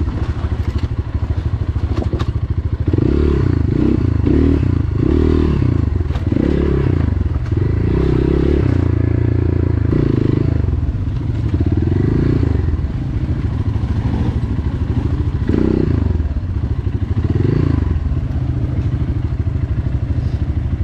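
GPX FSE250E four-stroke dual-sport motorcycle engine running under way, its pitch rising and falling again and again as the throttle is opened and closed, with a few light knocks from the bike.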